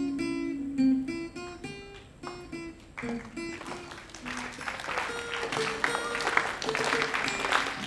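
Guitar played by plucking single ringing notes. From about three seconds in, clapping joins while the guitar keeps playing.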